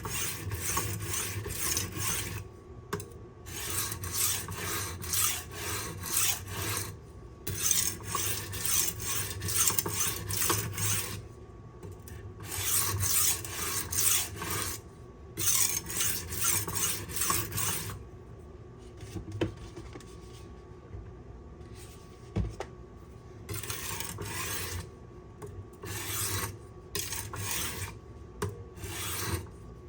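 A W2 steel knife edge being stroked across a coarse silicon carbide sharpening stone, in runs of rasping strokes with short pauses and a quieter lull of several seconds past the middle. The passes are grinding out the last of a chip in the edge.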